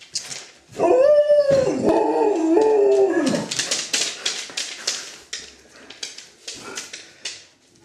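Alaskan Malamute howling: one drawn-out, wavering howl of about two and a half seconds that slides down in pitch. After it comes a run of quick scratchy clicks.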